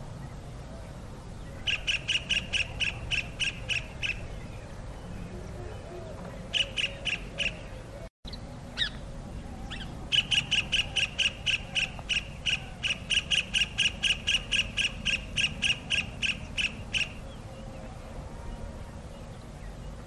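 A kingfisher calling its mate: bouts of sharp, shrill notes repeated rapidly at about four to five a second, the longest run lasting some seven seconds, with a steady low rumble underneath.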